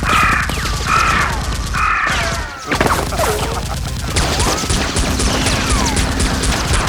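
Rapid, dense gunfire sound effects, shots in quick succession with whizzing sweeps through them.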